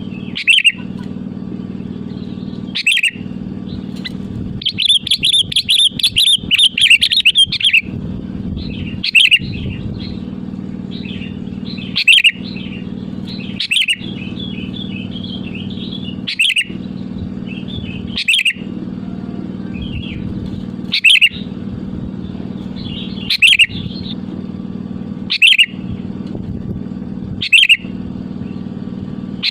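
Sooty-headed bulbul (kutilang) singing: short loud call phrases about every two seconds, with a longer run of rapid notes about five seconds in. A steady low hum runs underneath.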